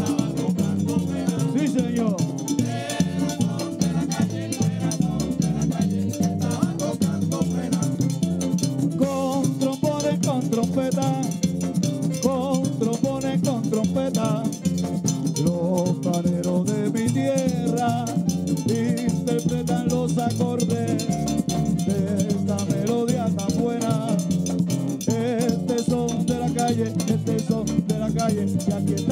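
Live plena music: voices singing over pandero hand drums, with a güiro scraping and stick percussion keeping a steady Latin beat.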